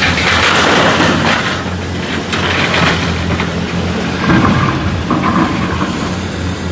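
Hitachi 890LC 90-tonne excavator loading earth and rock into a dump truck: a long rushing rumble as the bucketload pours out over the first three seconds, over the steady low drone of the heavy diesel engine. About four seconds in a brief whine rises from the machine.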